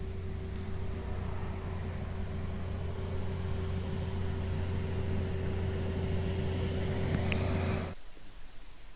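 A steady motor hum, a constant low drone with a steady higher tone over it, that cuts off suddenly about eight seconds in.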